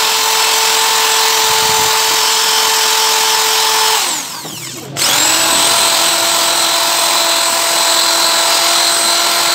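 Electric drill running steadily with a high motor whine. It stops abruptly about four seconds in, then starts again a second later and runs at a slightly lower speed.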